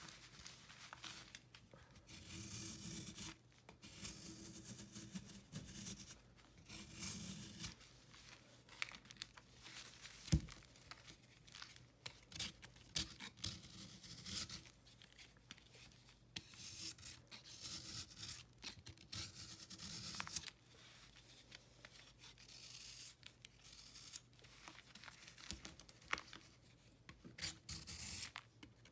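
Snap-off utility knife blade scraping and shaving a hardened marbled block of baking soda, chalk and calcium carbonate, in a run of gritty strokes as flakes crumble away. One sharp click about ten seconds in.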